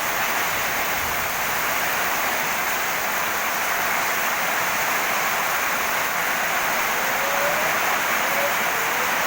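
Rain falling steadily on a garden, an even hiss with no let-up. A faint brief gliding tone sounds near the end.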